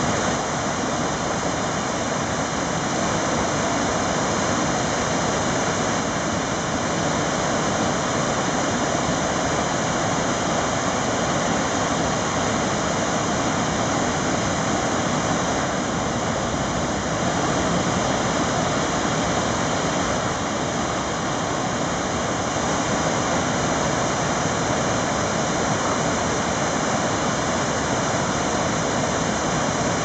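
The Falls of Falloch, a waterfall dropping over a rock ledge into a pool, rushing with an even, unbroken roar of falling water.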